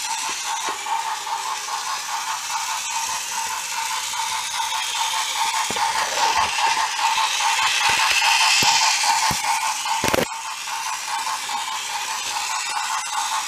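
Battery-powered toy locomotive's small electric motor and gears whirring steadily as it runs along wooden track, with a few clicks from the wheels over the track joints. The whir grows louder about eight seconds in and drops suddenly a little after ten seconds.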